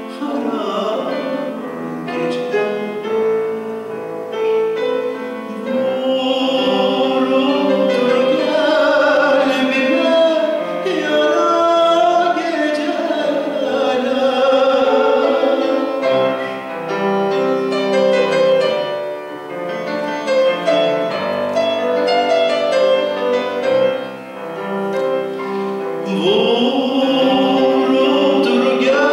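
Male classical-style vocalist singing with vibrato, accompanied by a grand piano.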